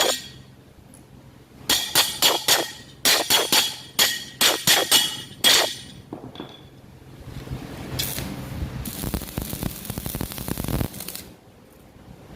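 A hammer striking metal about a dozen times in quick succession, each blow ringing briefly, followed near the end by a crackling hiss lasting about two seconds.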